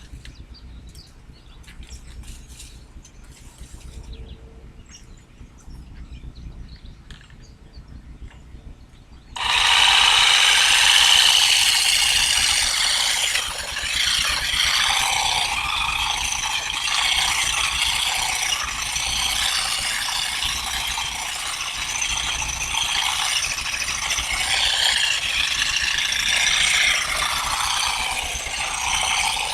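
Faint scattered clicks, then a loud steady mechanical clatter that starts suddenly about nine seconds in and keeps going.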